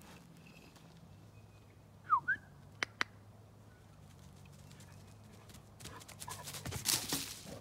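A dog running through grass up to the microphone, its rapid footfalls and swishing through the grass growing louder toward the end. Earlier come two short high chirps and two sharp clicks.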